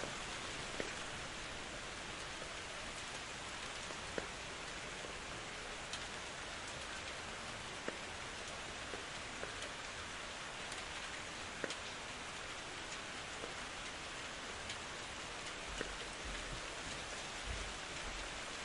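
Steady rain: an even hiss with occasional louder drops ticking.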